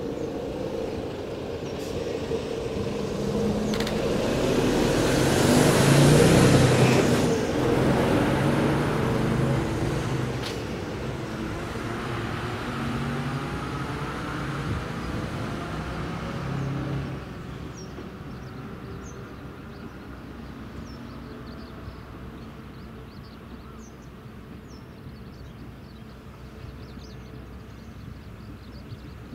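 A road vehicle passes close by, its engine and tyre noise swelling to its loudest about six seconds in and fading away by about seventeen seconds. Then steady, fainter traffic noise.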